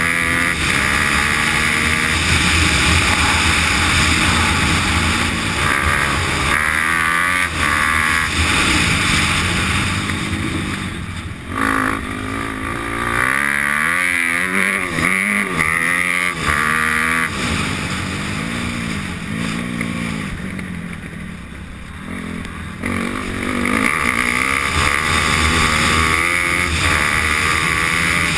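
Off-road motorcycle engine under way, revs climbing and falling as the rider runs through the gears. It eases off twice, about a third of the way in and again about two-thirds in, then pulls hard again.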